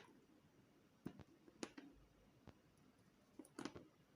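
Near silence broken by several faint, sharp clicks at irregular intervals.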